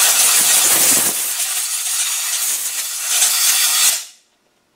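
Compressed-air blow gun blasting into a heater blower motor to clear out muck and rust: a loud, steady hiss of air that stops about four seconds in.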